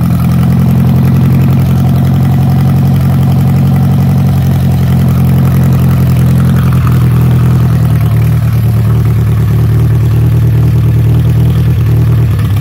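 1948 Commer truck engine, running again after more than 30 years standing unused, idling steadily at an even speed.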